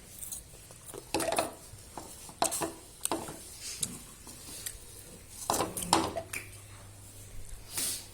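Irregular light clicks and clatters of peanuts being handled, with a louder knock about five and a half seconds in.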